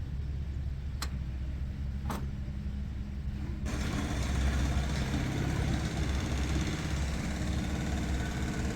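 Diesel truck engine idling steadily, with two short metallic clicks about one and two seconds in. Just past midway the sound turns suddenly fuller and brighter and stays that way.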